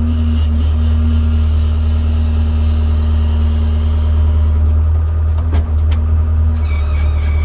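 Skid steer engine running steadily while it warms up in the cold, with a steady higher whine over it that stops near the end. A couple of sharp knocks come about five and a half seconds in.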